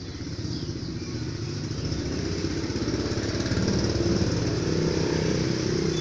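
Small motorcycle engine approaching along the street, growing steadily louder as it nears.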